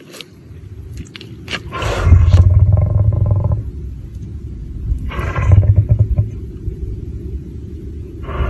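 Lion roaring: a long, deep call about two seconds in, a shorter one in the middle, and a third starting at the end, over a steady low rumble.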